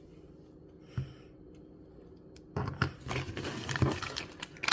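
Tiny plastic miniature toys and their packaging being handled: a single light knock about a second in, then from about halfway a run of clicking and rustling.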